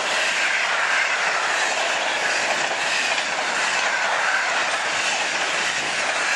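Passenger train of grey steel SJ coaches passing close by at speed: a loud, steady rolling noise of wheels on the rails.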